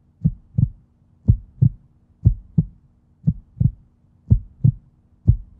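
Heartbeat sound effect: slow, regular double thumps (lub-dub), about one pair a second, over a faint steady hum.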